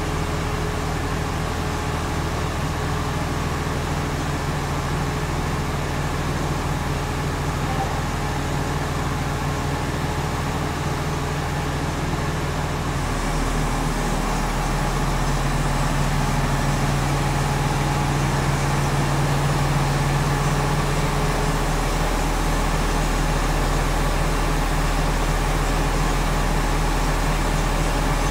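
Steady low drone of heavy machinery running, with a continuous low hum. It gets a little louder about halfway through, when a stronger low tone comes in for several seconds.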